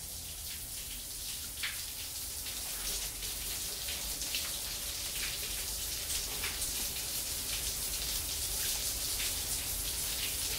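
Steady hiss of falling water, like a shower spray or rain, with scattered drop splashes, growing slightly louder.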